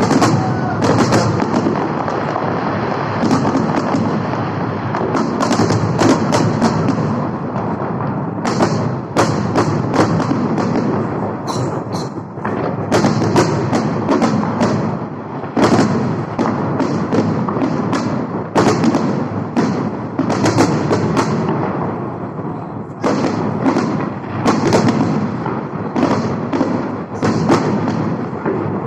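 Fireworks salute going off: a rapid, continuous run of bangs and crackles that keeps up throughout.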